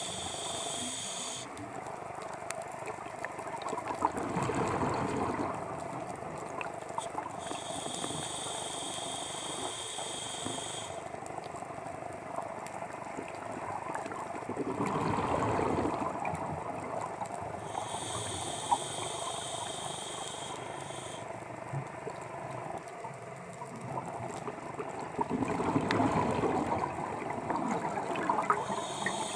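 Scuba diver breathing underwater through a regulator, about one breath every ten seconds. Each breath is a hissing inhale lasting two to three seconds, followed a few seconds later by the rush of exhaust bubbles, three times over.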